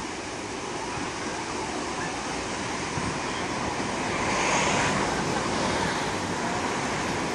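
Steady wash of surf breaking on the beach, mixed with wind, swelling a little about four seconds in.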